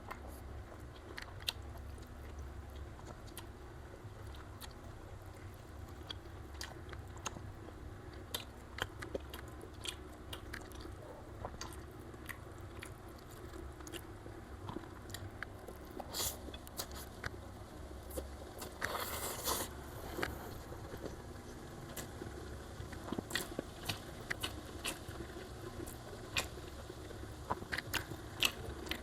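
A person chewing mouthfuls of rice with thick Padang-style omelette and cassava leaves, close to the microphone, with many small scattered clicks and a brief rustling scrape about two-thirds of the way through.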